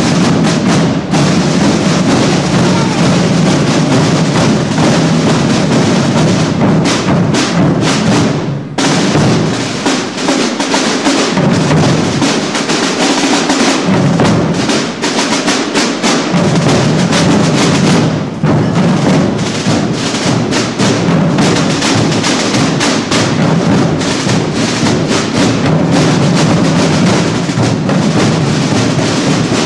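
A Holy Week drum corps playing field drums (timbals) with sticks in a dense, continuous marching rhythm. About nine seconds in the drumming breaks off briefly, and for several seconds after that the deep drum sound is thin before the full drumming returns.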